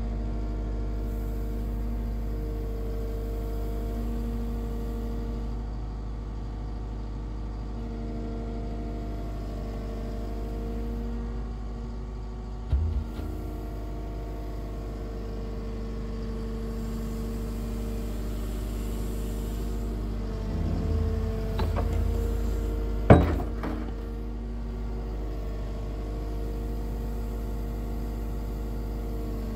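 Atlas 140 W wheel excavator's diesel engine running steadily as its boom and bucket are worked, with the pitch wavering a little under load. There is a short clunk about 13 s in and a sharp, loud metal knock about 23 s in.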